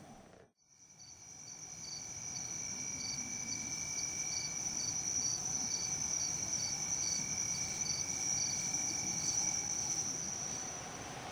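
Night insects, crickets, trilling steadily after a moment of near silence at the start: a high continuous trill, a fainter lower one, and a separate chirp pulsing about twice a second.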